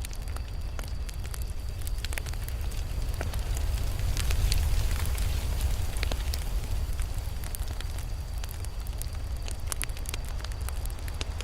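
Campfire burning: a steady low rumble of flames with frequent sharp crackles and pops from the burning wood, swelling a little louder around the middle.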